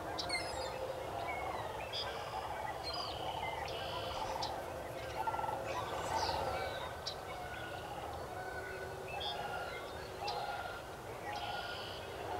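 Many wild calls overlapping: low clucking calls repeat about once or twice a second under scattered higher chirps, short trills and quick sweeps.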